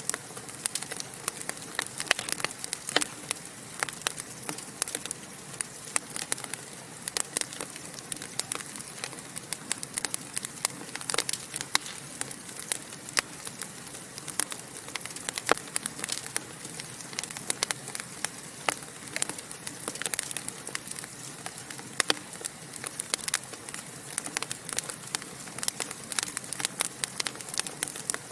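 Wood logs burning in a fireplace, crackling and popping: many irregular sharp pops over a steady hiss.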